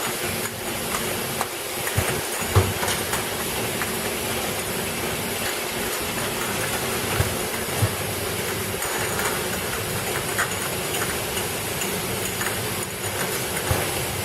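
Bottle washing and air-cleaning machine running: a steady hiss over a machine hum, with a few short sharp knocks now and then.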